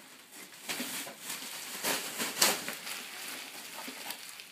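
Gift wrap and packaging being handled, with irregular crinkling and rustling that is loudest in a sharp crackle about two and a half seconds in.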